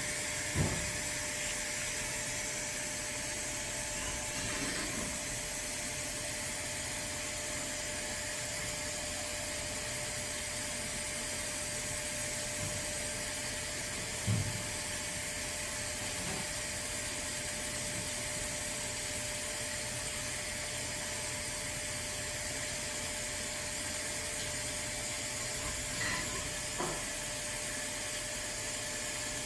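CNC plunge-type external cylindrical grinder running: a steady hissing noise with a faint constant tone, broken by a few short knocks, one about half a second in, one near the middle and two close together near the end.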